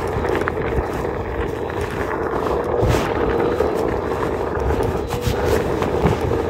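Steady hum of an electric motor, its pitch wavering slightly, over a rough rumbling noise, with a couple of brief gusty flares in the middle.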